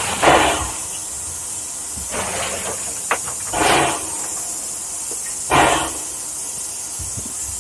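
Steady hiss of steam in the cab of Calumet and Torch Lake #3, a Mason Bogie 0-6-4T steam locomotive standing still, with several short louder rushes and one sharp click about three seconds in.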